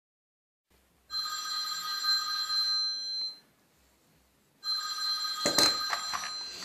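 Desk telephone ringing twice, each ring about two seconds long with a short silence between. Near the end the handset is lifted with a clatter while the second ring is still sounding.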